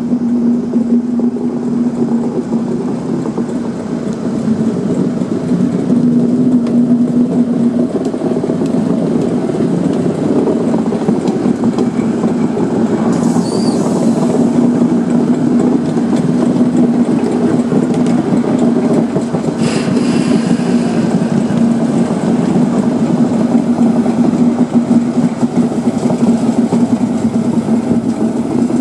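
British Rail Class 60 diesel locomotive's eight-cylinder Mirrlees engine running with a steady drone as the locomotive draws slowly to a stop with its train of tank wagons.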